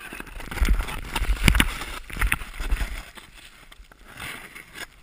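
Snowboard scraping and sliding over snow, heard through a helmet-mounted camera, with repeated knocks and low wind rumble on the microphone. Loudest in the first three seconds, then quieter.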